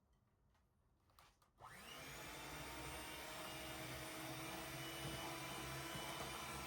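A few faint clicks, then an electric household appliance motor switches on about a second and a half in and runs steadily with an even whirring hum.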